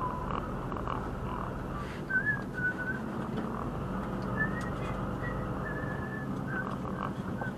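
A person whistling a short tune in a string of brief notes from about two seconds in until near the end, over the steady drone of an HGV's engine as it drives along.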